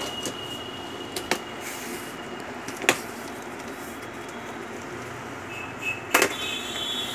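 A cardboard box being handled and its taped seam slit open, with a few sharp taps and knocks: the loudest about three seconds in and just after six seconds.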